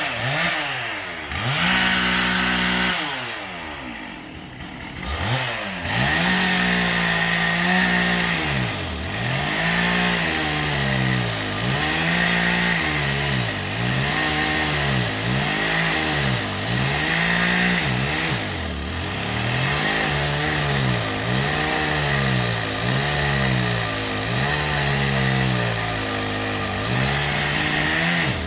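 Chainsaw running, its engine note dropping and climbing back again and again, roughly every second and a half, with a brief quieter lull a few seconds in.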